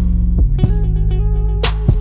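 Background music: plucked guitar over bass, with a steady beat.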